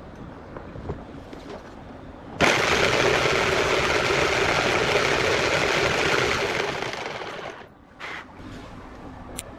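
A loud, harsh burst of metalworking power-tool noise lasting about five seconds. It starts suddenly a couple of seconds in and tails off before stopping, with a few light clicks before and after.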